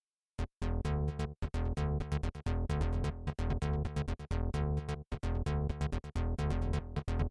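Background music: an electronic synthesizer track of short plucked notes in a quick, even rhythm over a steady bass line, starting about half a second in.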